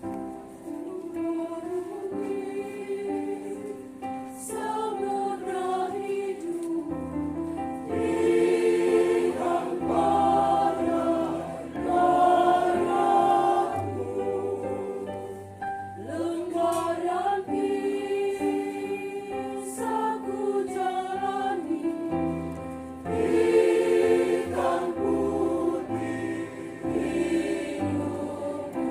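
Church choir singing a hymn in several voices over an accompaniment of steady held bass notes, swelling louder in places.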